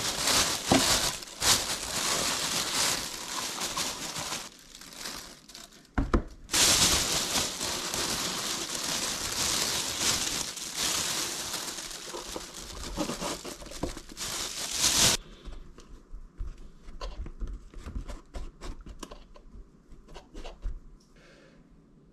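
Thin plastic bag crinkling and rustling loudly as potting soil is scooped out of it, with a short lull partway and a stop about two-thirds of the way through; after that, only faint scattered small ticks and scrapes.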